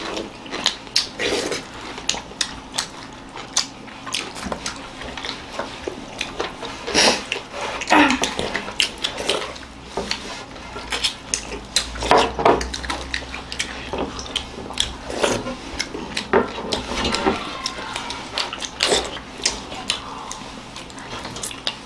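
Fingers scooping and scraping rice and curry across metal plates while eating by hand, with irregular clinks and scrapes of plates and bowls on the table.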